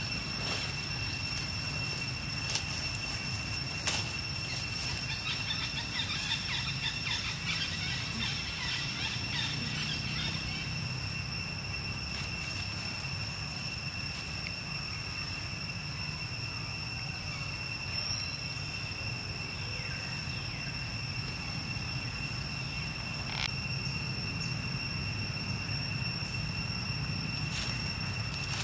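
Steady outdoor ambience: a continuous high-pitched whine with a higher overtone above it, over a low steady rumble. A few faint chirps come in between about five and ten seconds, and there are a few isolated sharp clicks.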